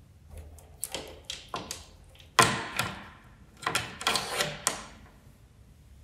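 Door security chain lock being worked: a run of metallic clicks and rattles, the loudest clack about two and a half seconds in and another cluster of rattles around four seconds in.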